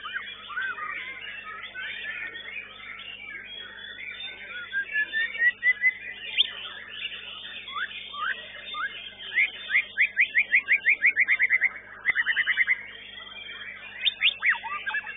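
White-rumped shama (murai batu) singing loud, varied whistled phrases, with a fast run of repeated notes about two-thirds of the way through. Many other caged songbirds keep up a steady chattering chorus behind it.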